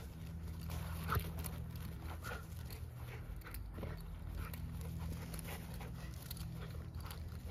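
A dog panting and making short sounds while it grabs and tugs on a toy, over a steady low hum.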